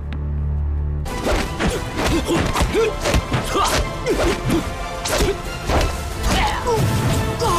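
A low steady music drone, then from about a second in a fast hand-to-hand fight: a rapid run of sharp dubbed punch and block whacks and thuds, with swishes of moving limbs and clothing, over a film score.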